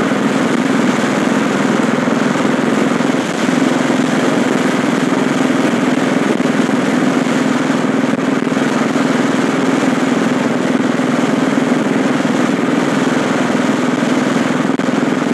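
Motorcycle engine running steadily at road speed, with wind and road noise from riding; the level dips briefly about three seconds in.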